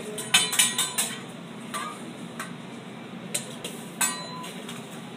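A hibachi chef's metal spatula and fork clanking against each other and the steel griddle: a quick run of sharp clanks within the first second, then a few single clanks spread over the next three seconds, some ringing briefly.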